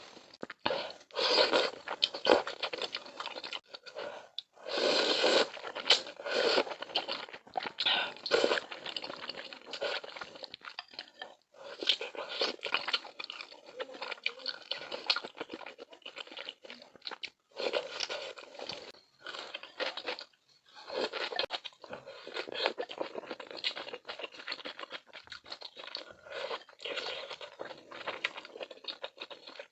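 Close-miked eating sounds: mouthfuls of milk malatang being chewed, in bursts of a few seconds with short pauses between.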